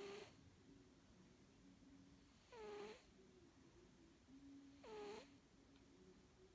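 Snoring: three short, high-pitched whistling snores about two and a half seconds apart, each dipping and then rising in pitch, over a faint low hum.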